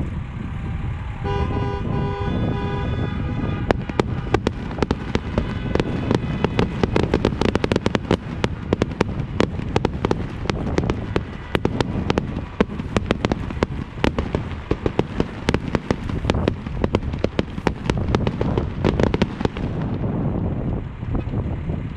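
Fireworks display going off: a dense run of bangs and crackling that starts about four seconds in and stops shortly before the end. Near the start a car horn honks a few short times. A low wind rumble on the microphone runs underneath.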